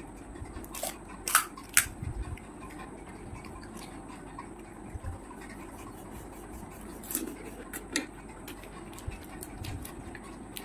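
Crisp panipuri shells cracking and crunching during eating: a cluster of sharp crackles about a second in and a couple more about three-quarters of the way through, with soft knocks of handling at the table.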